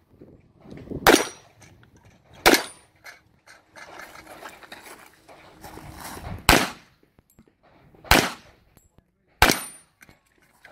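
Five single handgun shots, sharp cracks with a short ringing tail, spread irregularly with a longer gap in the middle.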